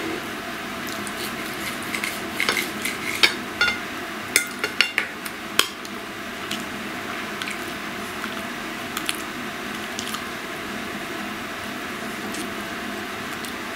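Cutlery clicking and scraping on a plate while eating a meal of meat: a quick run of sharp clicks between about two and six seconds in, then a few fainter clicks, over a steady background hiss.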